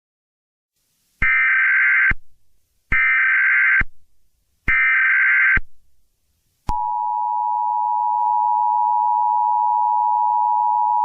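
Emergency Alert System tones: three short, harsh, buzzing data bursts of the SAME header, about a second apart. Then, about two-thirds of the way in, the steady two-tone EAS attention signal (853 and 960 Hz) starts and holds.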